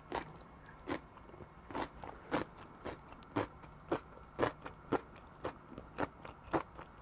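Close-miked ASMR eating sounds of someone chewing crunchy kimchi, with crisp crunches coming about twice a second.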